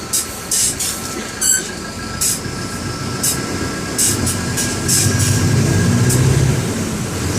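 Mercedes-Benz OM-924 LA four-cylinder inline diesel of an OF-1721 bus running, heard from inside the bus, its low hum growing louder from about four seconds in as it pulls harder. Short hissing bursts recur throughout, with a faint steady whine over the middle.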